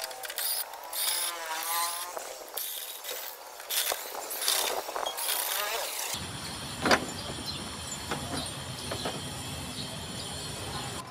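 Handling sounds as an air cooler's fan motor is unbolted from its plastic mount: scattered clicks and a brief squeak of screws and tools, then a sharp clink just before the seventh second over a steady background hiss.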